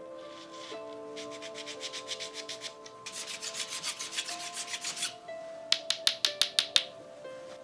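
Hand rubbing a thin bamboo fishing-rod section in fast back-and-forth strokes, about nine a second, with a short run of sharper, louder strokes near the end. Soft background music with sustained notes underneath.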